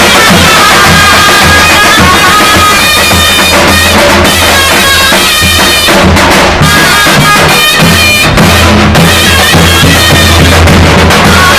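Zurna and davul playing a Turkish folk tune: the double-reed zurna carries a loud, shrill melody over the steady beat of the davul bass drum.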